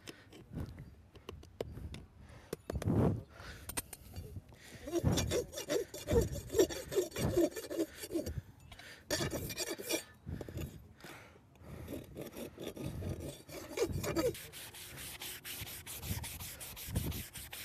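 Farrier's rasp scraping in bursts of quick back-and-forth strokes, with short pauses between bursts.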